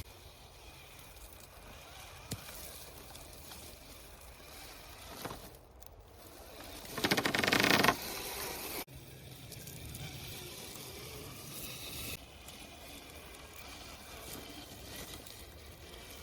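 Axial SCX10 III radio-controlled crawler truck working along a trail, its electric motor and gears whirring in short runs, loudest in a burst about seven to eight seconds in.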